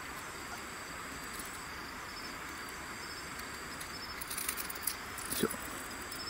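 Steady high chirring of night insects, with a short high chirp repeating about once a second. From about four seconds in, there is rustling and clicking as a hand works in a mesh landing net at the lure hooked in the fish.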